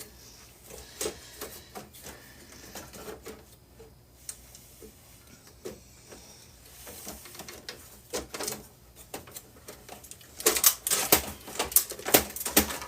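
Scattered light clicks and taps of a server motherboard and metal chassis parts being handled, then a dense spell of metallic clattering and rattling near the end.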